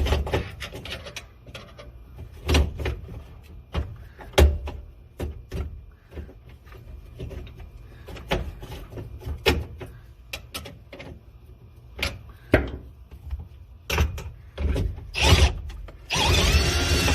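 Tools knocking, clicking and scraping on a truck dashboard in irregular bursts while working loose the ignition switch. About a second before the end, a small power tool starts running steadily.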